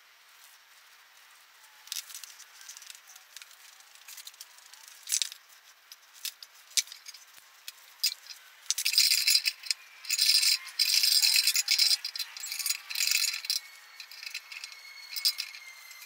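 Ratchet wrench clicking in quick bursts, stroke after stroke, in the second half, with scattered small metallic clicks and knocks of tools and parts being handled before it.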